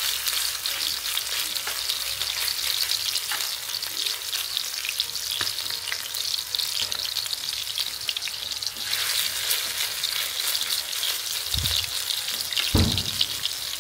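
Bite-sized minced snake meat patties sizzling and crackling as they fry in hot oil in a pan. The sizzle gets louder about two-thirds of the way through, and two dull thumps come near the end.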